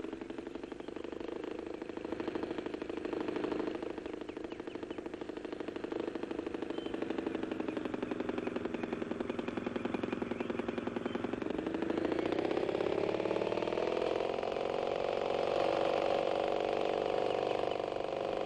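Small propeller engine of a model aeroplane running fast with a rapid buzzing rattle, a runaway engine left running because it can't be shut off. Its pitch climbs about two thirds of the way in and holds higher.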